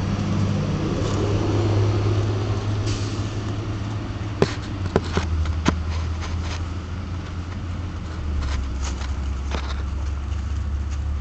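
A motor vehicle engine running at idle, a steady low hum that drops in pitch twice, about five and a half and about eight seconds in. A few sharp clicks come about four and a half to six seconds in, with fainter ones a little later.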